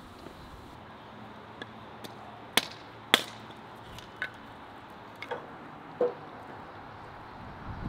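Hatchet chopping kindling on a wooden block: a few sharp strikes, the loudest about three seconds in, followed by lighter knocks of wood.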